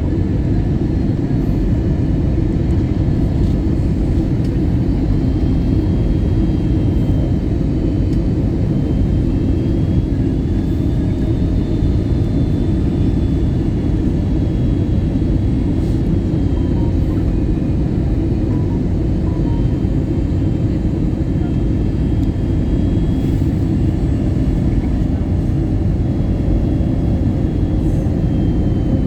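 Airbus A320neo cabin noise in flight: a steady low rumble of the engines and airflow, with a faint high whine that drifts slightly in pitch.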